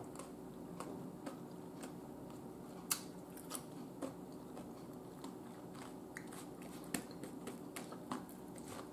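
A person chewing and biting crisp seasoned cucumber slices: faint, scattered crunches and clicks, the sharpest about three seconds and seven seconds in.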